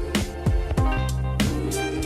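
Background music: a beat with a deep kick drum and sharp snare-like hits under sustained pitched instruments.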